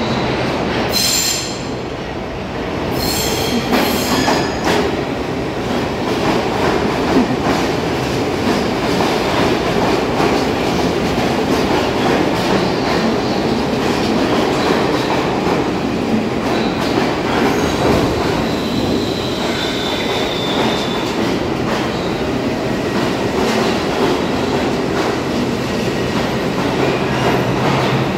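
New York City subway R62 train on the 3 line entering the station and running along the platform: a steady loud rumble of steel wheels on rail, with sharp high wheel squeals about a second in and again around three to four seconds in, and fainter squeals later on.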